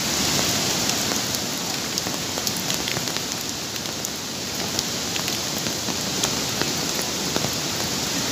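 Heavy rain falling: a steady hiss with many scattered sharp ticks of drops striking close by.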